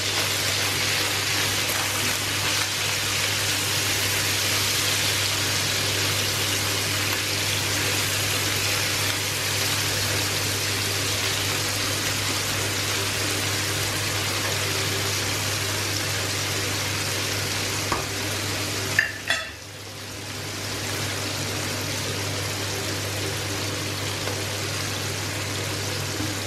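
Chicken, onion, red pepper and bamboo shoots sizzling in a non-stick frying pan as they stir-fry, turned now and then with a spatula and fork: a steady frying hiss that breaks off briefly about two-thirds of the way through.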